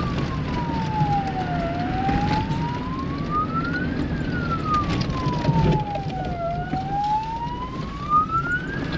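A siren wailing slowly up and down, each rise and fall taking about five seconds, over the low running of the vehicle's engine with knocks and rattles from the rough dirt track.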